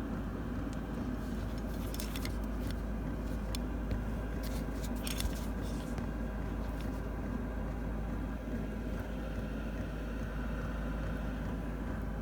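Steady low mechanical drone of a running motor, with a few faint clicks between about two and five seconds in.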